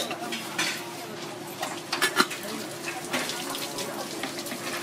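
Water from a hose splashing over freshly cut shellfish meat as it is rinsed, with several sharp clicks and knocks from the meat and knife being handled on the board.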